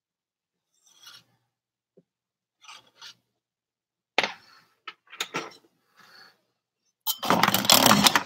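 A spoon scraping and knocking against a cooking pot of chili while it is stirred: a few short scrapes, a sharp knock about four seconds in, and a longer, louder scrape near the end.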